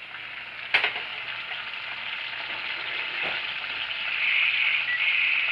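Pan juices sizzling around a roast chicken in a stainless steel skillet fresh from a hot oven, the hiss growing louder toward the end. A sharp metallic knock comes about a second in.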